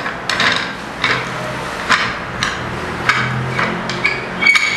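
Sharp metallic clicks and knocks at uneven intervals as a long threaded rod with a star knob is worked into the steel clamp bar of a manual screen stretcher.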